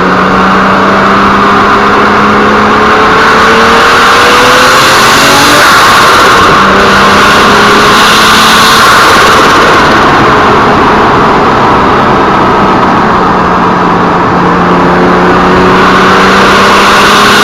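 Turbocharged Toyota 1JZ straight-six engine running, heard close up from inside the engine bay. Its tone climbs slowly in pitch, drops away briefly about three seconds in, then climbs again. A loud, steady rushing noise of air and turbo sits over the engine tone.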